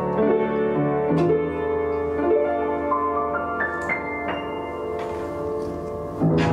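Upright piano being played: held chords, then a quick rising run of single notes about three seconds in that rings out, and a new chord struck near the end.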